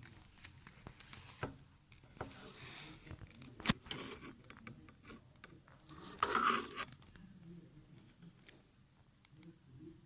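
Handling sounds of an unboxed coffee machine and its packaging: scattered light clicks and knocks, one sharp click near four seconds in, and two brief rustles.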